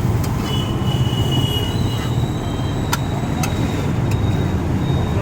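Road traffic running past, a steady low engine rumble with a thin high squeal held for a second or two at a time, and a few sharp clicks.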